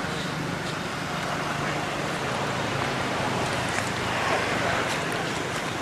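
Steady outdoor background noise with a low, even hum and no distinct event, of the kind distant road traffic makes.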